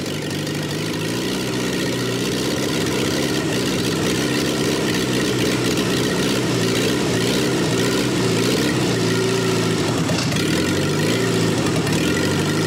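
Petrol engine with raised compression, converted to diesel with a diesel injection pump, running steadily on diesel fuel and building up over the first few seconds. It is kept going by compression ignition with a heat gun warming it, running off the heat gun.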